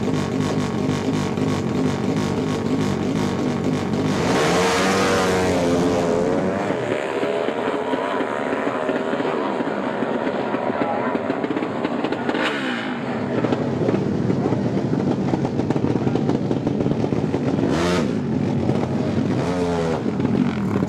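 Drag-racing motorcycle engine held on the rev limiter in short pulsing blips at the start line, then launched hard about four seconds in, revs climbing and dropping through several quick gear changes before the engine grows fainter down the strip. Near the end, short sharp revs rise again.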